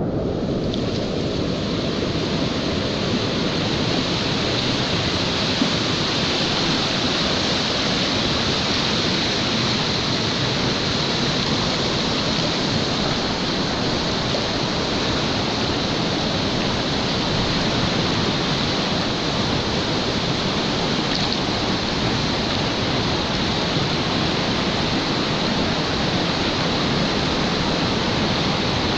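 River rapids rushing steadily over rocks, heard close to the water from a kayak.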